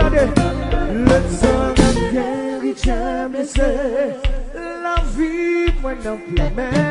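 Live kompa band: men singing into microphones over keyboard, bass and drums. The bass and drums drop back through the middle and come back in near the end.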